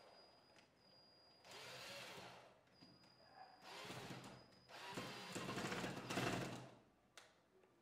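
Cordless drill-driver driving a screw into a wall hole filled with cotton hardened by super glue, run in three short bursts with the longest and loudest near the end, followed by a single click.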